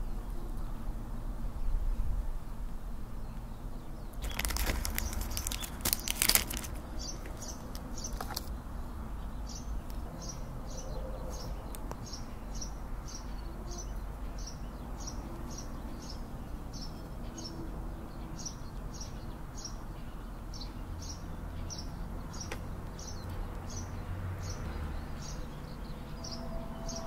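Clear plastic cake wrapping crinkling loudly for about two seconds, a few seconds in, as it is peeled off the cheesecake slice. After it, short high chirps repeat about two to three times a second over a low outdoor background.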